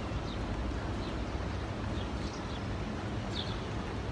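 Small birds chirping, short high falling notes about once a second, over a steady low outdoor rumble.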